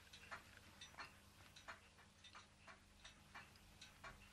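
Ross Yoke low temperature Stirling engine running on the heat of a mug of hot water, its linkage giving faint, regular ticks about three times a second.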